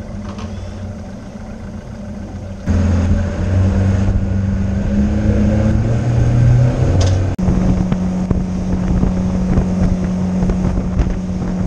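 Fishing boat's outboard motor running, opening up about three seconds in with a rising engine note as the boat gets under way, then running steadily at speed.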